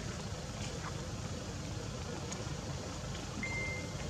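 Steady low rumble of outdoor background noise, with a short high steady tone about three and a half seconds in.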